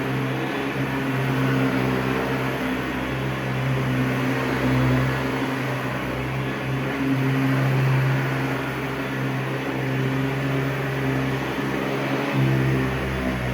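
Vintage Hoover upright vacuum cleaner running: a steady motor hum with a strong low drone that swells and dips now and then.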